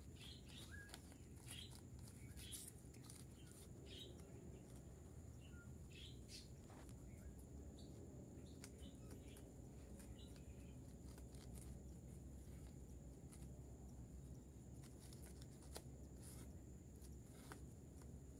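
Faint, scattered soft clicks of rabbits nibbling and chewing banana stalks, with a few brief distant bird chirps, mostly in the first few seconds, over low background noise.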